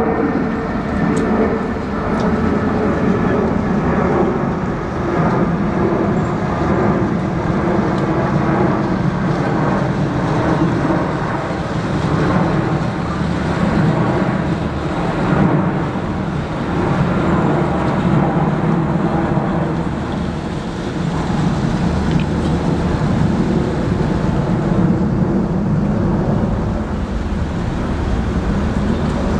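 Small cabin cruiser's engine running steadily as the boat manoeuvres, with a slow rise and fall in level.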